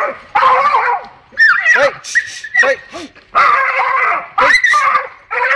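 A dog barking and whining at a stray cat it has cornered, in a run of about half a dozen loud calls whose pitch rises and falls.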